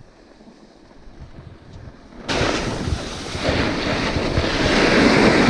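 A faint low rumble, then about two seconds in a sudden loud rush of wind on an action camera's microphone, with a snowboard sliding and scraping over packed snow. It grows louder as the rider picks up speed down the slope.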